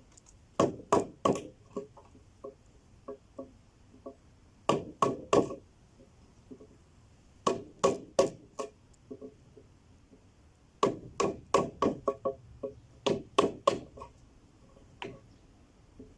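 Wood being chopped with sharp strikes in bursts of three or four blows a few seconds apart, with lighter taps between, as the waste is cleared from a square mortise.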